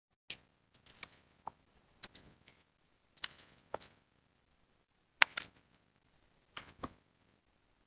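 Faint, irregular light clicks and brief rustles, about seven in all with the sharpest about five seconds in, like handling noise from papers or desk objects near a microphone.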